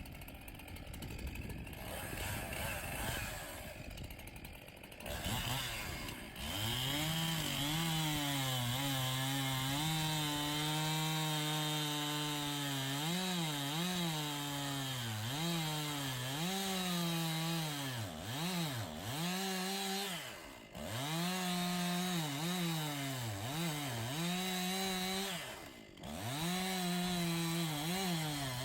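Two-stroke gasoline chainsaw making the back cut through a dead ash trunk, its engine pitch rising and sagging again and again as the chain bogs under load. The saw comes in steady about six seconds in, and the sound drops off briefly twice in the second half.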